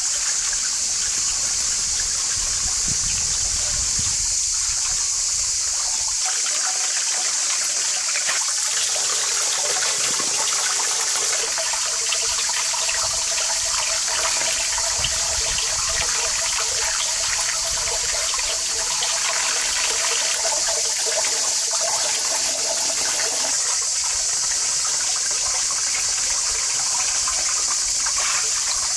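Outdoor tap running steadily into a metal basin, the stream splashing over leafy greens and herbs as they are rinsed by hand.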